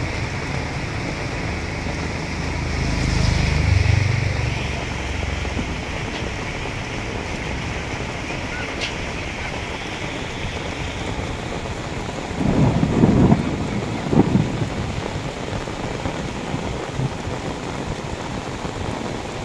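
Rainwater rushing out of a clogged-then-cleared culvert into a flowing ditch, with heavy rain falling, a steady splashing rush. A low rumble swells and fades about three seconds in, and a few short low thumps come around thirteen to fourteen seconds in.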